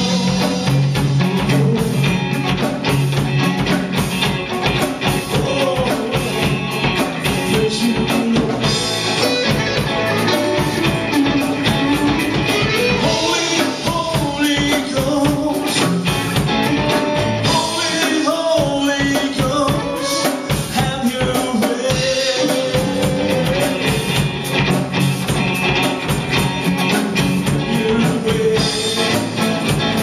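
A man singing a rock song through a microphone while strumming an electric guitar, backed by drums.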